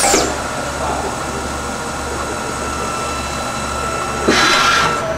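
Tsugami B018B-III Swiss-type CNC lathe running under power: a steady high whine over a low electrical hum. There is a short falling whistle at the start, and about four seconds in the whine stops and a burst of hiss takes over.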